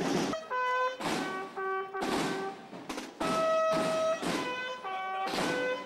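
Procession band of brass horns and drums playing a march: long held brass notes changing pitch over heavy drum beats about once a second.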